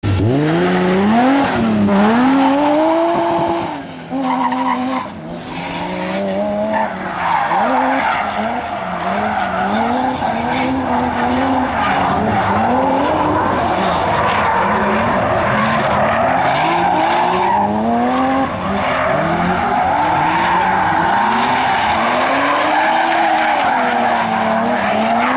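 Drift cars' engines revving hard, the pitch climbing and falling again and again as the throttle is worked through the slides, with tyres screeching under the cars. The sound briefly drops off about four seconds in before picking back up.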